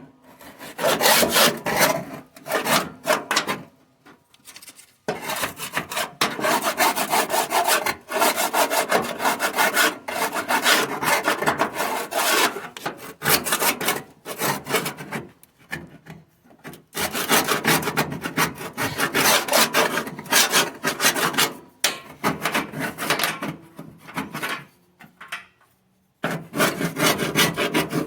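Hand sanding: rapid rough rubbing strokes in runs of a few seconds, broken by short pauses.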